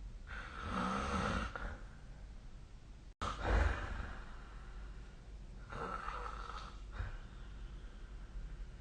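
A sleeping person snoring: about three noisy snoring breaths a few seconds apart, the first with a low wavering rasp. The sound cuts out for an instant about three seconds in.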